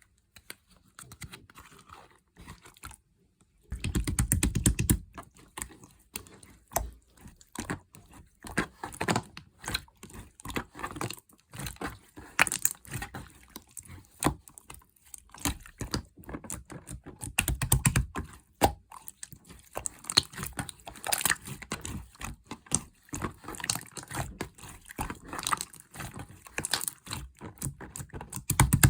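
Clear slime squished and pressed by hand, giving quick sticky clicks and crackling pops, with a few louder squelches about four seconds in, around eighteen seconds, and at the end.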